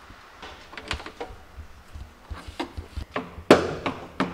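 Irregular knocks and clunks of plastic body parts on a Nissan GQ Patrol being handled and worked loose as they are stripped off. The knocks come more often in the second half, with the loudest about three and a half seconds in.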